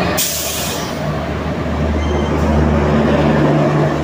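Loud rush and rumble of a train passing close by on the next track, heard from the open doorway of a moving train, with a burst of wind noise just after the start and a steady low hum setting in about a second and a half in.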